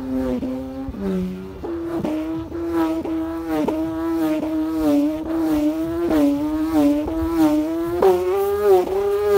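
Khmer kite hummer (ek) with a freshly cut rattan tongue, whirled round on a string so it hums. It gives a steady buzzing drone that swells and wavers with each turn. The drone firms up about two seconds in and climbs a little in pitch near the end as the swing speeds up.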